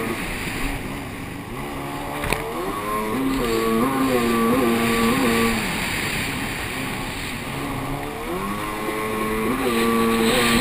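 Racing jet ski engine heard from on board, over water and wind rush: it revs up about three seconds in, holds a high steady pitch with slight wobbles, drops back around six seconds, then revs up again and holds near the end.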